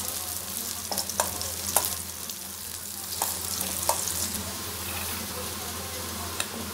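Sliced garlic sizzling as it fries in hot oil, stirred with a perforated metal skimmer that clicks and scrapes against the metal pan several times.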